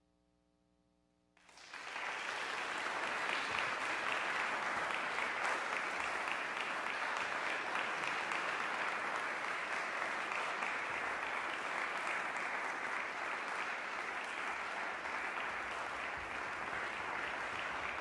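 Audience applauding: it breaks out suddenly about a second and a half in, after near silence, and keeps going steadily.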